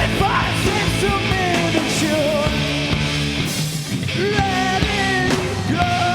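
A rock band playing live: guitars, bass and drums at full volume, with a melody line that bends and wavers in pitch over them.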